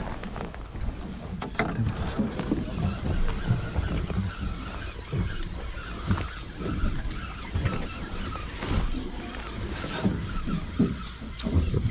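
Steady low rumbling noise aboard a small fishing boat at sea, broken by irregular short knocks.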